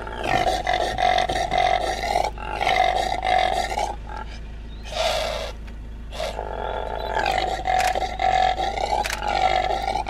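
Impala calling: a run of about five loud, harsh, drawn-out calls, most lasting one to two seconds, with a short one about five seconds in and brief pauses between them.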